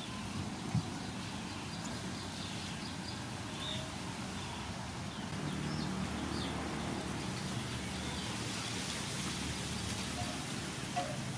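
Steady outdoor background hiss with a few brief, faint bird chirps.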